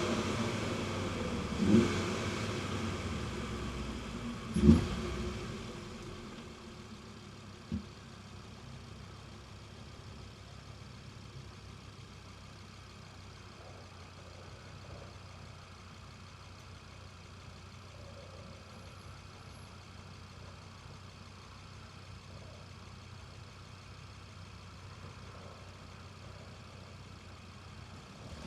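Audi TT RS 2.5-litre turbocharged five-cylinder winding down off throttle, with three short loud bursts in the first eight seconds, the loudest a few seconds in. It then settles to a quiet, steady idle for about twenty seconds before it is revved hard again at the very end.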